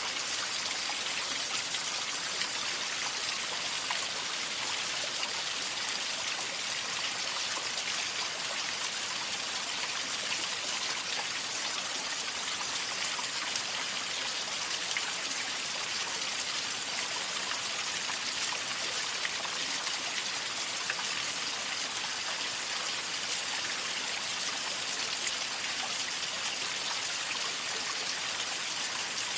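Waterfall: water falling and splashing in a steady, unbroken rush, mostly high-pitched.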